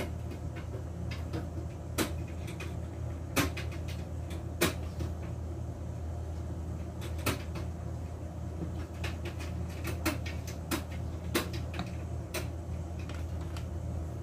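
Scattered light clicks and knocks of small plastic puto molds and a spoon against a metal tray and a plate as batter is spooned into the molds, over a steady low hum.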